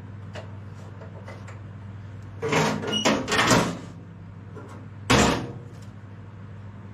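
Metal parts of a tractor being handled, with a cluster of knocks and scrapes about two and a half seconds in, then one louder clank about five seconds in, over a steady low hum.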